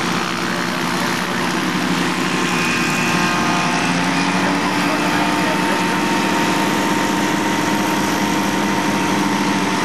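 Engine and propeller of the RagWing Ultra Piet ultralight running steadily during its climb-out and pass overhead. The pitch rises slightly about three seconds in.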